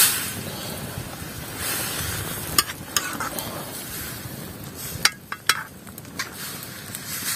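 Pumpkin shoots go into a metal wok of hot water over a wood fire with a brief loud hiss, then are stirred with a metal ladle that clinks sharply against the wok several times.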